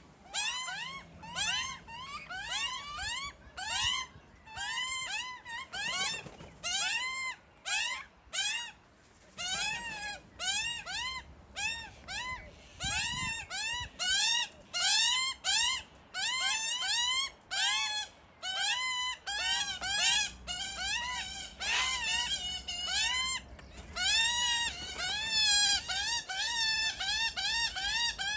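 Young Australian magpies crying to be fed: a rapid, unbroken run of short calls, each rising and falling in pitch, several a second. These are hungry begging calls.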